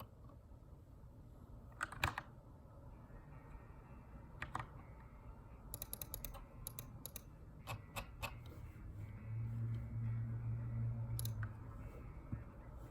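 Keychron K2 aluminium mechanical keyboard with brown switches, typed in scattered short bursts of keystrokes with pauses between, as in text editing.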